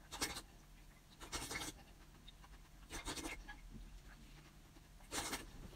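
Faint eating sounds from a large fried oil cake: four short scratchy bursts, roughly one every second and a half.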